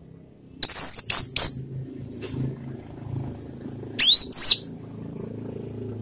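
Orange-headed thrush singing: a quick run of three loud, sharp high notes about a second in, then two loud sweeping whistled notes, one rising and one falling, near the four-second mark, over a steady low background hum.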